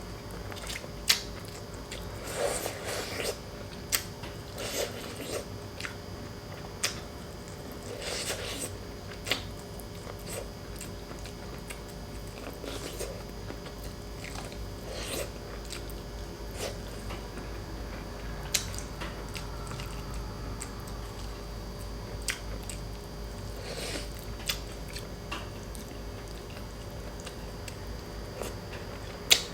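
Close-up eating sounds of a person chewing and biting boiled pork hock and rice: irregular wet smacks and sharp mouth clicks every second or two.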